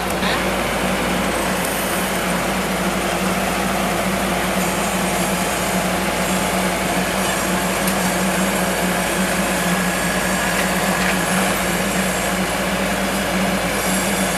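Maxxi Bimo 102L combine harvester's diesel engine running steadily under way, with a constant low hum and a faint higher whine.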